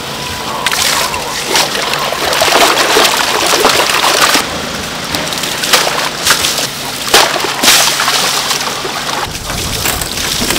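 Fish being cleaned with a knife on a cutting board: continuous scraping broken by sharp chopping strikes, the clearest bunched about halfway through, with water splashing.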